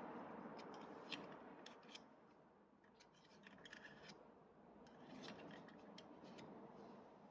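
Faint scattered clicks and light rubbing, the sound of small parts or tools being handled during brake work.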